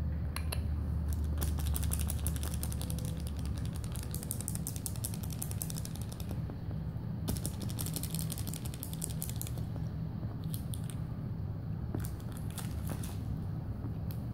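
A kitten's claws scratching and clicking in quick dense runs, a long run of a few seconds, a short pause, another run, then a few brief bursts, over a low steady hum.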